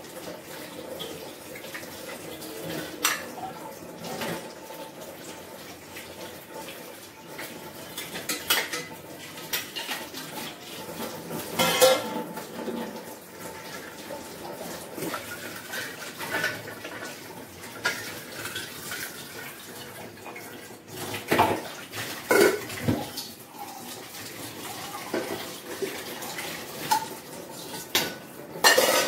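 Stainless-steel plates, bowls and a pot clinking and clattering as they are washed and stacked at a kitchen sink, over the steady sound of the tap running. Loud clanks stand out here and there, the strongest near the middle and just before the end.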